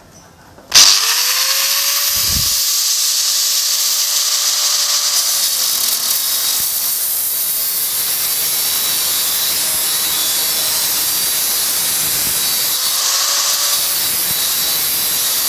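Hitachi G10SS2 4-inch angle grinder switched on about a second in, its whine rising quickly to full speed, then an abrasive cut-off disc grinding through a round hollow steel tube: a steady, loud, hissing grind. Near the end the motor's whine rises briefly as the load on the disc eases.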